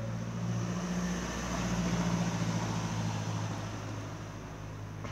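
Motor vehicle running with a steady low engine hum and a broad rush that swells and fades over a few seconds, as a car passes.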